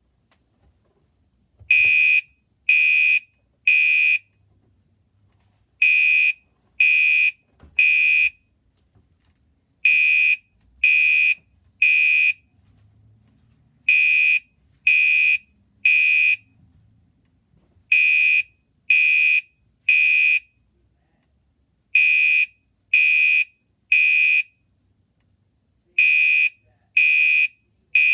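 Gentex Commander 3 fire alarm horn sounding a loud, high-pitched electronic tone in the temporal-three evacuation pattern: three short blasts, a pause, then three more, repeating steadily.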